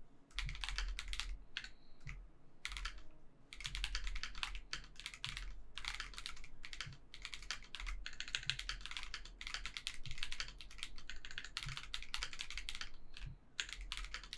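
Typing on an Akko 5075B Plus mechanical keyboard with Akko CS Creamy Yellow linear switches: fast runs of keystrokes broken by short pauses.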